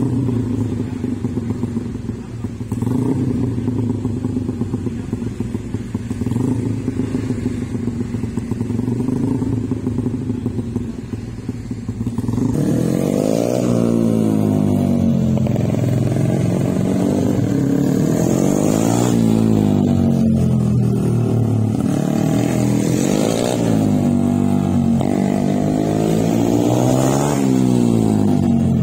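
Mini GP minibike's small engine idling steadily, then from about twelve seconds in revving as it rides around the cones, its pitch rising and falling in repeated sweeps every few seconds.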